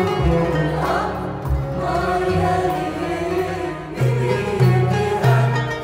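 A choir singing with a string orchestra of violins and other strings, in a Syrian orchestral piece. Deep bass notes come in strongly, one after another, about four seconds in.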